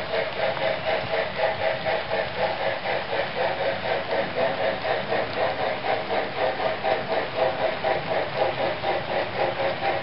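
DCC sound of an HO-scale Norfolk and Western class A 2-6-6-4 steam locomotive model, playing a quick, even steam-exhaust chuff through its on-board speaker while the train runs, with the freight cars rolling on the track.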